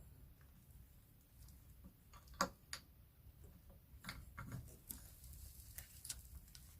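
Faint clicks and light taps of hands handling the piston and wrist pin during fitting to the connecting rod, the two sharpest about two and a half seconds in, then a scatter of lighter ones.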